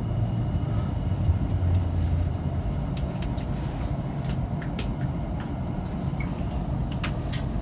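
Electric commuter train running on the rails as it comes into a station: a steady low rumble, with a low hum over the first couple of seconds and scattered sharp clicks and squeaks later on.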